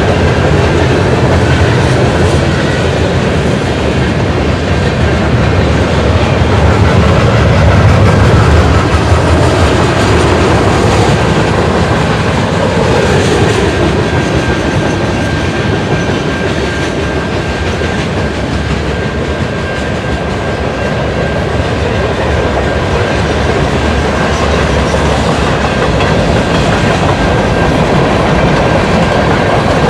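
Freight train cars rolling past at close range: a steady heavy rumble with wheels clattering over the rail joints and a faint, steady high-pitched whine from the wheels.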